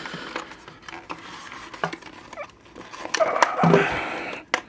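Cardboard packaging rustling and scraping with scattered clicks as a webcam and its cable are worked free of a tight cardboard insert, with a louder stretch of scraping about three seconds in.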